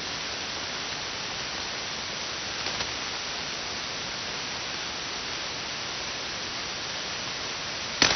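Steady hiss of 160-meter band noise from a ham radio receiver with the frequency open and nobody transmitting. A faint crackle comes about three seconds in, and a sharp pop near the end.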